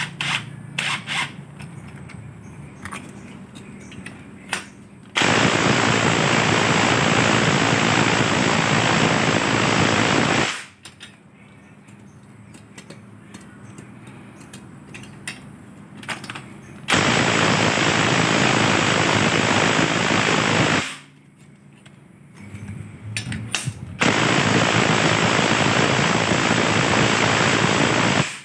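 Impact wrench hammering in three long bursts of about four to five seconds each, driving the strut's top nut and the coil spring compressor bolts while a new top mounting is fitted. Quieter clinks of tools and parts being handled come between the bursts.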